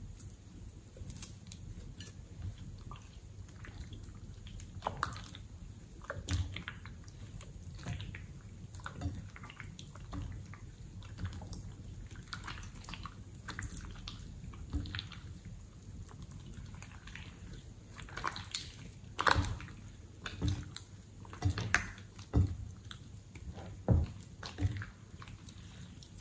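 Red slime being stirred, then squeezed and kneaded by hand in a glass bowl: sticky squishing with irregular wet clicks and pops that grow louder and more frequent in the last third.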